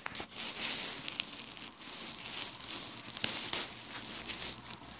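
Close rustling and scraping against carpet, with scattered sharp clicks, the loudest about three seconds in.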